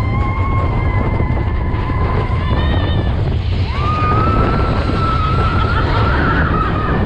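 Mine-train roller coaster cars running fast along the track with a steady low rumble and wind buffeting the microphone. Over it sounds a long high-pitched squeal, which fades about three seconds in and is replaced by another that slowly rises in pitch.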